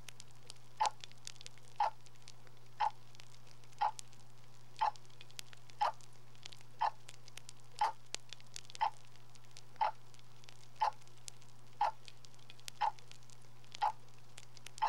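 A clock ticking steadily, about one tick a second, over a low steady hum.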